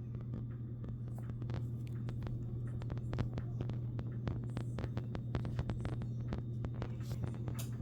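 A smartphone being handled and tapped: many small, irregular clicks and taps over a steady low hum.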